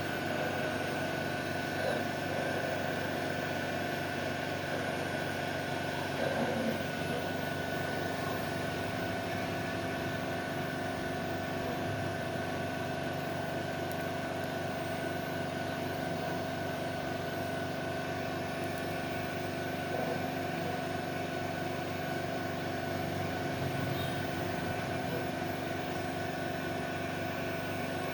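Dual-station PCB soldering machine running: a steady mechanical hum with a few steady whining tones, and a couple of slight bumps about 2 and 6 seconds in.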